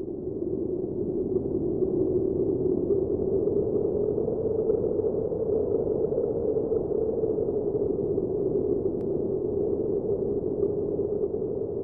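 Steady, muffled electronic drone, a low hum with a hiss-like edge that fades in at the start and holds level throughout.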